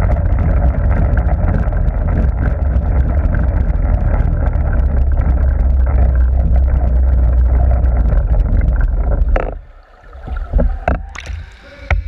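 Underwater pool noise picked up by a submerged camera: a loud, steady low rumble of churning water from a swimmer's strokes. About nine and a half seconds in it drops away sharply as the camera comes out of the water, followed by a few splashes and knocks.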